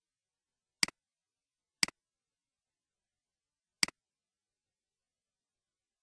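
Three computer mouse clicks, each a quick press-and-release double tick, about a second in, a second later and near four seconds, with dead silence between.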